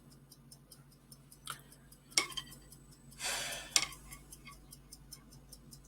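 Faint, even ticking, several ticks a second, with a few louder clicks and a short breathy hiss about three seconds in.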